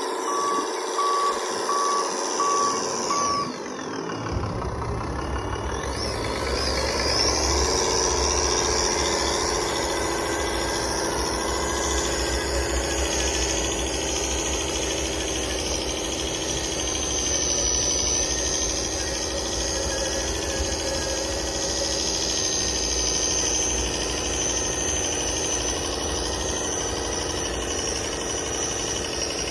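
Radio-controlled dump truck model beeping in reverse for the first few seconds, then its motor and gears running steadily, with a whine that slides in pitch a few seconds in.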